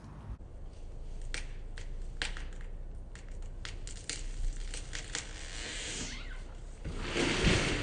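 Wood of a fruit tree's trunk cracking and snapping several times as the tree tips over, then the crown's branches swishing down and crashing into the ground near the end.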